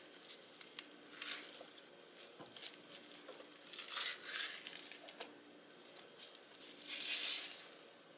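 Soft rustling and crinkling handling sounds in three short bursts, about a second, four seconds and seven seconds in, with a few faint ticks between.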